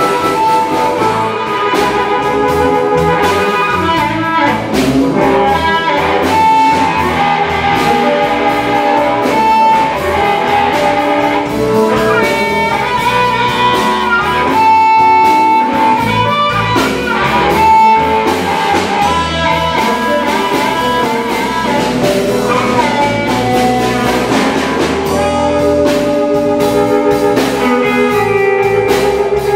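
Live blues band playing: amplified harmonica wailing long, bending notes over electric guitar and drums.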